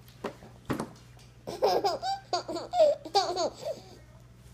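Toddler laughing: a run of short, high-pitched giggles and squeals starting about a second and a half in and lasting around two seconds.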